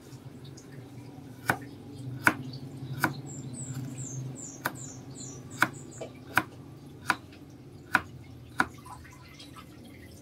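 Large kitchen knife chopping carrots on a plastic cutting board: about nine sharp knocks at an uneven pace.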